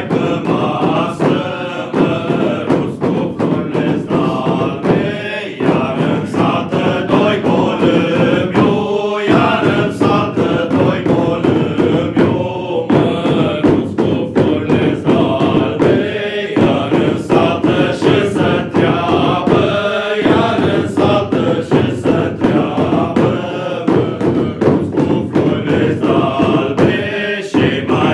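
Men's group singing a Romanian colindă (Christmas carol) in a chanting style, with frequent beats struck on small hand-held dubă drums. Short breaks between sung lines recur every few seconds.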